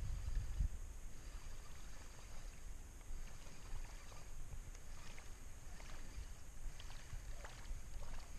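Low rumble of wind on the microphone and faint water sounds around a small boat, with a few faint light ticks from about four seconds in.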